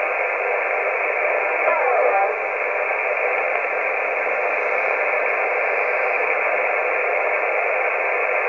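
CB radio receiver on the 27 MHz band hissing with steady static and band noise between transmissions, squelch open. There is a faint warble about two seconds in.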